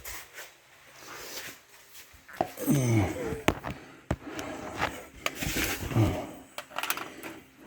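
Clicks and knocks of a heavy power cable being shifted by hand under a car, with two short grunts or mumbled sounds from the man doing it, each falling in pitch.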